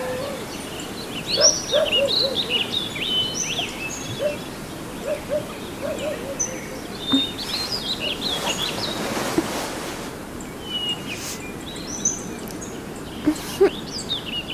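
Small birds chirping and twittering in many short, overlapping calls: morning birdsong ambience. Around the middle a soft rush of noise swells and fades.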